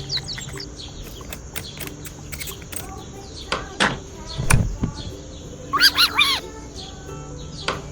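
Birds chirping in a morning farmyard soundscape, with a low thump about four and a half seconds in and a short run of three or four louder bird calls around six seconds.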